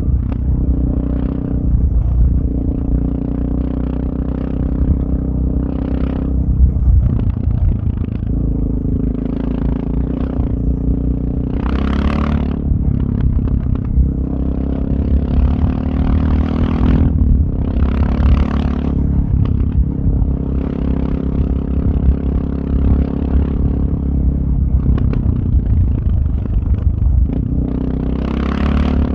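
Suzuki DR650's single-cylinder engine running through an aftermarket Powercore 4 exhaust while riding, its note rising and falling as the throttle is opened and closed, with a few louder surges. Gravel clatters and scrapes under the tyres throughout.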